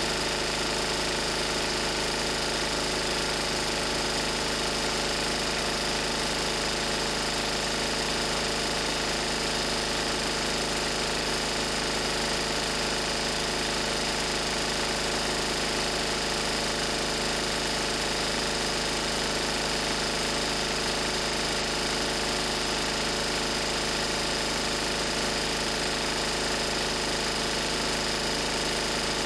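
Lister Petter AD1 single-cylinder diesel engine driving a 5 kVA generator, running steadily at 3000 rpm.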